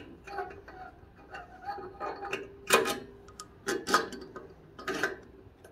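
A handful of sharp clicks and knocks from a small-engine carburetor being handled, metal parts tapping and clinking.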